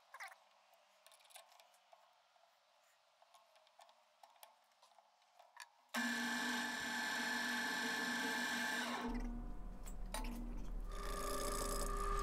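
Near silence with a few faint clicks, then about six seconds in a drill press starts suddenly and runs with a steady motor whine. About three seconds later a wood lathe takes over, its motor running with a steady low hum as a large wooden disc spins.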